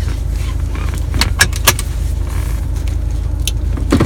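Steady low rumble inside a running car, with a few short sharp clicks and taps as a faux-leather long wallet is handled and flipped open, a cluster of them about a second in and another near the end.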